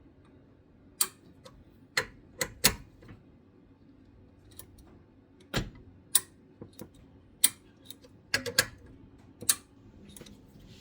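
About a dozen sharp metallic clicks at irregular spacing, from a wrench being worked on connecting-rod bolts while they are tightened to their initial torque.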